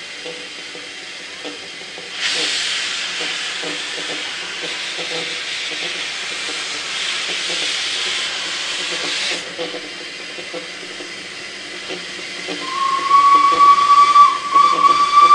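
Narrow-gauge steam locomotive Lyd hissing steam for about seven seconds, then sounding one long steam whistle that starts near the end and is the loudest sound, as it sets off with its train.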